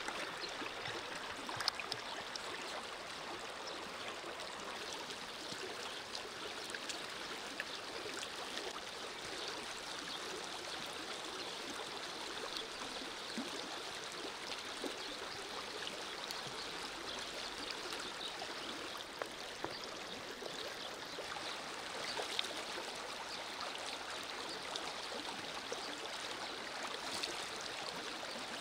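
Shallow river running over stones: a steady rushing babble of water, with a faint click now and then.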